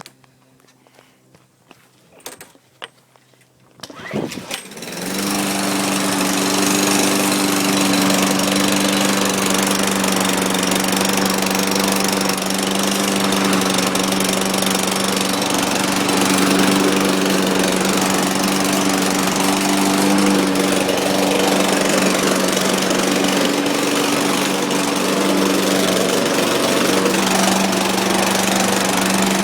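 Walk-behind lawn mower's small overhead-valve engine pull-started: a few quiet seconds with short rattles, then it catches about four seconds in and runs steadily at a constant speed.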